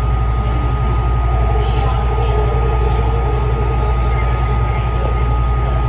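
Taichung MRT Green Line metro train running, heard from inside: a steady low rumble under a constant high electric whine, with faint ticks from the wheels on the track.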